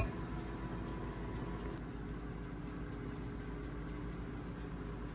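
A steady low hum with a few faint held tones and no distinct events.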